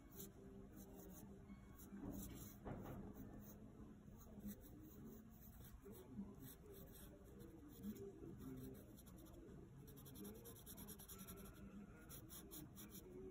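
Colored pencil scratching faintly on paper in many short, quick shading strokes.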